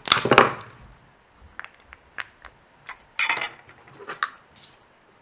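Small hard clicks and scrapes of a tool and metal parts as the controller board is pried off a 1.8-inch Toshiba hard drive. The loudest scraping comes right at the start, with a second burst about three seconds in and scattered single clicks between.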